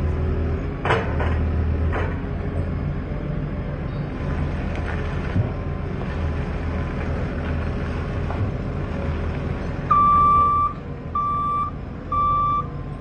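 JCB Loadall telehandler's diesel engine running steadily as the machine manoeuvres, with a couple of short knocks about one and two seconds in. Near the end its reversing alarm beeps three times, each beep about half a second long.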